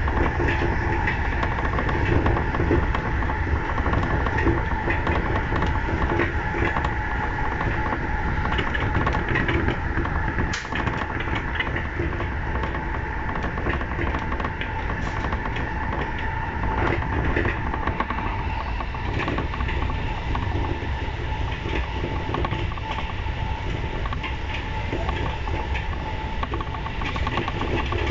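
E235 series electric commuter train running at speed, heard from inside the front car: a steady rumble of wheels on rails with a few steady tones over it, and one sharp click about ten seconds in.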